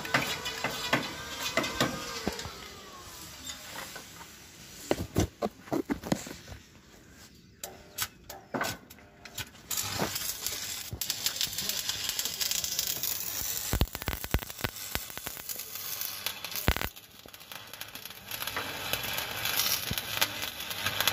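Electric arc welding: the arc crackles and sizzles steadily through the second half, with a short break a few seconds before the end. Earlier, a few sharp knocks and clanks.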